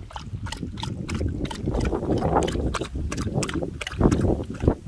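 Golden retriever lapping water from a small bowl, a wet lap about three times a second, a little louder near the end. Strong wind rumbles on the microphone underneath.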